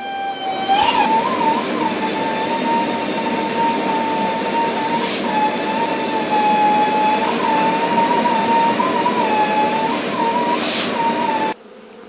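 Vacuum cleaner motor running with a steady whine while it sucks bees out of a nest, its pitch bumping up briefly now and then. It cuts off suddenly near the end.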